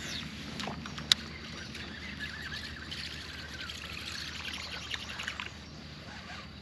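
Water splashing and trickling against a kayak, with many small drips and crackles and one sharp click about a second in.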